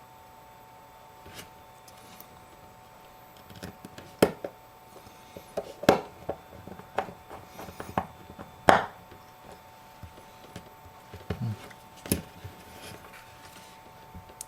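Scattered small clicks and taps of tools and tiny metal parts being handled while an iPhone 5's proximity sensor and casing are fitted onto a replacement screen, with a few sharper knocks in the middle and a steady faint tone underneath.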